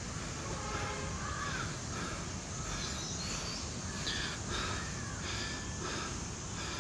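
Birds calling in the woods: short calls repeating every half second or so, over a low, steady rumble.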